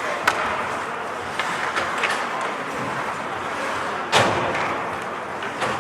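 Ice hockey play: a few sharp clacks of sticks and puck, and a loud bang against the rink boards about four seconds in, over steady arena noise.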